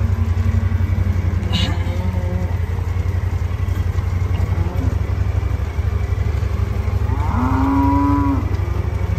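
One of the cattle moos once near the end, a single call about a second and a half long. Under it is a steady low engine rumble that runs throughout.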